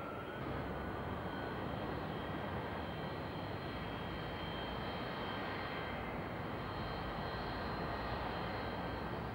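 Boeing 747 jet airliner on final approach, its engines making a steady rushing noise with a faint high whine. It gets slightly louder about half a second in.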